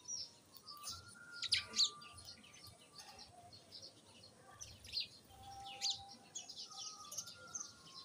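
House sparrows chirping: short, sharp chirps from a loose flock, coming on and off, with the loudest two close together about a second and a half in.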